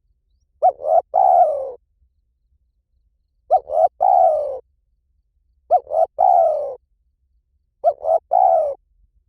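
Spotted dove cooing: four calls about two seconds apart, each two short notes followed by a longer falling note.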